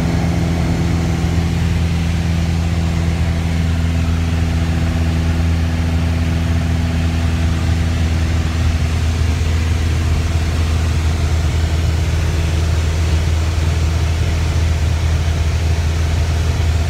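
Small plane's engine and propeller drone heard inside the cockpit in flight: a loud, steady deep hum with a few higher tones, unchanged throughout.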